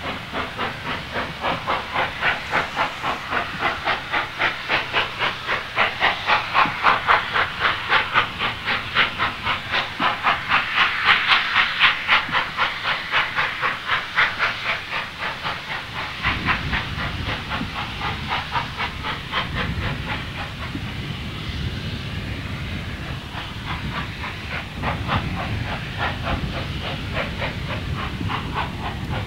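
J94 'Austerity' 0-6-0 saddle-tank steam locomotive working hard up a 1-in-50 gradient with a heavy train, its exhaust beating in a fast, even rhythm. The beats are loudest a little before halfway, then grow fainter as a low rumble comes in.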